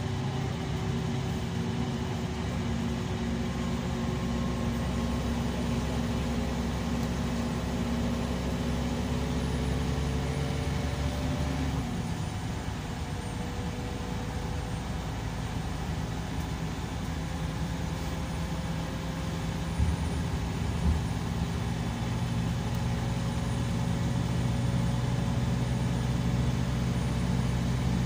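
Scania K340EB coach's diesel engine running under way, heard from inside the passenger saloon with road noise. Its note climbs slowly, drops about twelve seconds in, then runs steadily and climbs again near the end. Two short knocks come around twenty seconds in.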